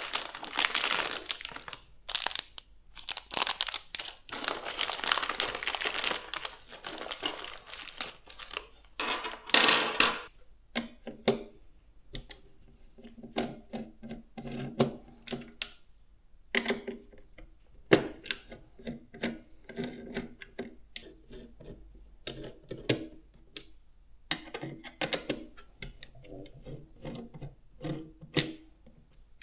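Packaging crinkling and rustling as PC components are unpacked, followed by a scatter of small clicks and knocks of parts being handled.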